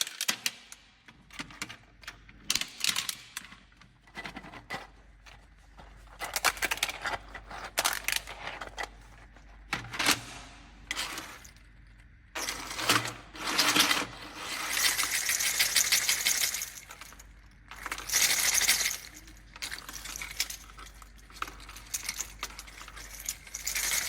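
3D-printed plastic octopus being handled, its hard plastic parts clicking, clinking and rattling in irregular bursts, with longer rattling stretches in the second half.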